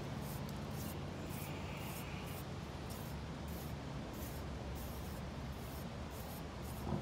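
Wet sand-and-cement mix being worked and textured by hand, short scraping strokes about two a second.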